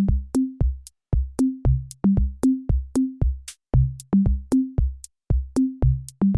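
Electronic music: a drum-machine beat of sharp hits with short pitched bass notes, about three beats a second.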